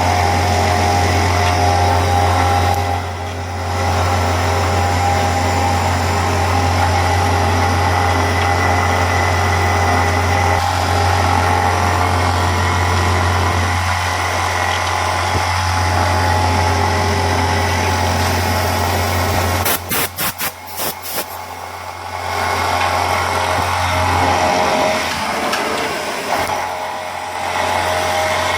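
Retrofitted Pratt & Whitney Tapemate C CNC mill running while machining an aluminum bracket: a steady machine hum with steady higher tones over it. The sound dips briefly a few seconds in, stutters with several quick breaks about two-thirds through, and dips again near the end.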